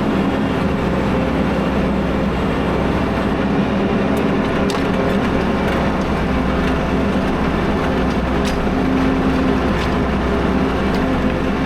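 Tractor engine running steadily under load while pulling a plough through sod, with a few light ticks over the top.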